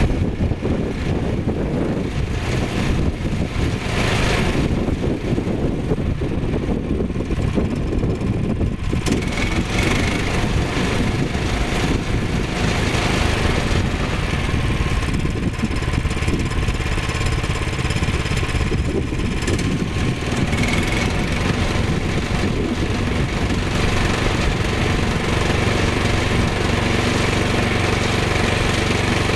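Small gasoline engine of a Woodland Mills HM122 portable sawmill running steadily.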